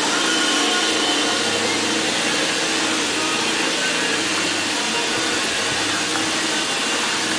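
Steady whooshing machine noise with a faint low hum, unchanging throughout.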